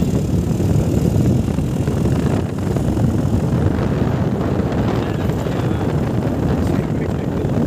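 Wind rushing over a phone's microphone while riding on a motorbike, a steady rumble with the bike's engine and road noise underneath.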